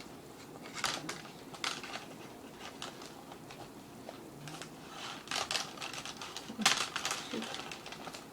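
Dry reed and bulrush stems crackling and rustling in irregular short clicks as they are woven onto a gourd basket, loudest about five to seven seconds in.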